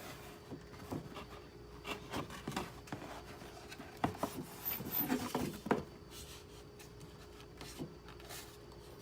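Cardboard box and styrofoam packing being handled: rubbing and scraping with scattered soft knocks, busiest about four to six seconds in, over a faint steady hum.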